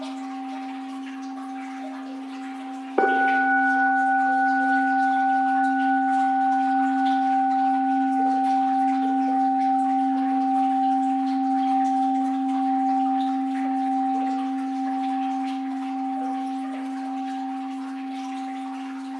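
Orin, a Japanese Buddhist bowl bell, struck once about three seconds in over the fading ring of the previous stroke, then ringing on in a long, slowly fading tone that wavers. Faint flowing water underneath.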